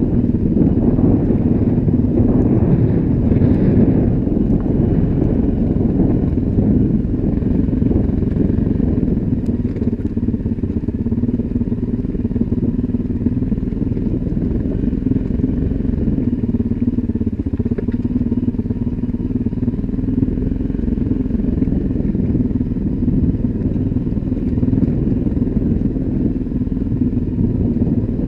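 Dirt bike engine running steadily as the bike rides a rocky trail, heard from on board the bike.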